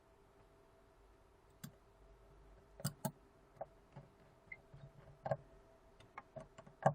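Small sharp clicks at uneven intervals, a dozen or so, as an iPhone 6 Plus is handled and its freed volume button is pressed.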